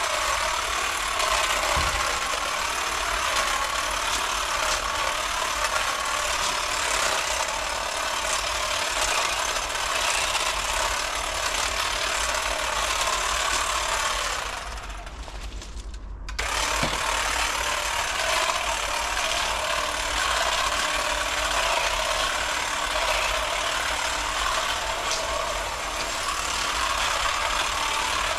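Electric long-reach pole hedge trimmer running steadily as it cuts through a hedge. About halfway through it winds down and stops briefly, then starts again and runs on.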